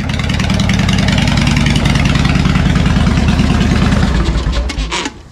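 Harley-Davidson V-twin motorcycle engine running loudly at idle, then switched off near the end and winding down.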